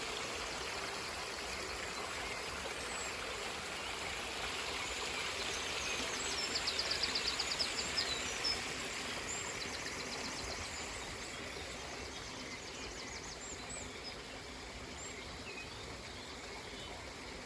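River water rushing steadily, with birds singing over it: a fast high trill about six seconds in, another about ten seconds in, and scattered short chirps. The rushing grows a little fainter in the second half.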